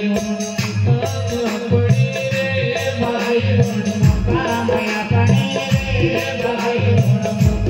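Devotional Hindi bhajan music in an instrumental passage between sung lines, with a steady rhythmic percussion beat under held melody tones.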